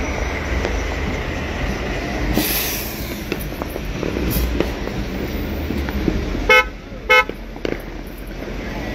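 A vehicle horn gives two short toots about half a second apart, over a steady low rumble of traffic and street noise, with a brief hiss about two and a half seconds in.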